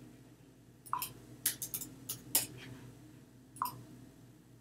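A few faint, scattered clicks from a computer mouse and keyboard while model sizes are typed in and dragged, with a couple of small mouth noises close to the microphone.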